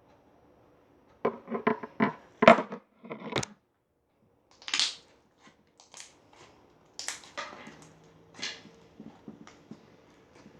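Slime being pressed and squished by hand, giving a quick run of crackling pops about a second in, then scattered pops and squelches as air pockets in the slime burst.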